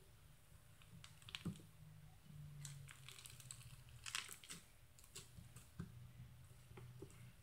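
Black face mask slime pressed by hand through a wire mesh grid, giving faint scattered clicks and crackling pops, busiest about four seconds in.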